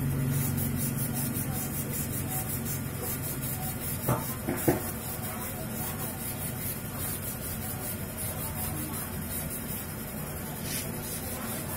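Steady workshop background noise with two short clicks about half a second apart, a little over four seconds in, as small engine parts are handled.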